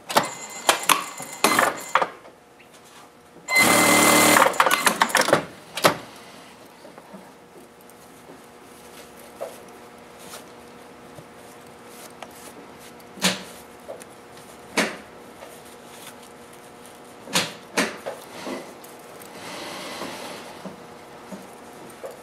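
Industrial single-needle sewing machine stitching a seam in a short run of about two seconds, a few seconds in, after a couple of briefer stitching bursts. Later come scattered clicks and rustles as the fabric is handled.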